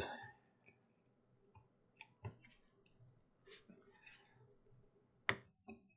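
Faint, scattered metal clicks and ticks from the nuts and parts of an old selenium rectifier stack being worked loose with pliers and fingers, with one sharper click about five seconds in.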